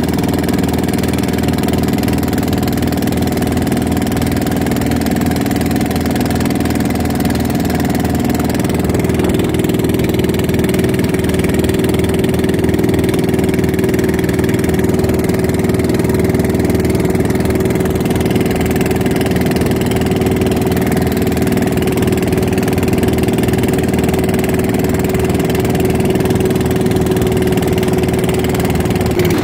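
Tianli 30 hp boat engine in a wooden pompong running steadily at speed, not yet at full throttle, its pitch holding constant, with water spraying and rushing along the hull.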